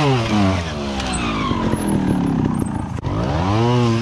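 Trial motorcycle engine blipped quickly up and down in pitch, then running lower with scattered light knocks as the bike works over rock. Another sharp rev comes near the end.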